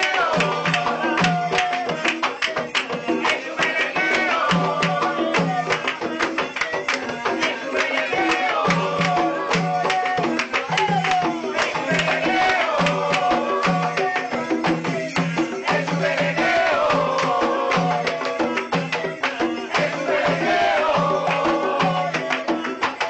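Consecrated batá drums (añá) playing a steady interlocking rhythm for Changó, the brass bells strapped to the drum jingling with each stroke. Over the drums a voice sings a short descending phrase that repeats about every four seconds.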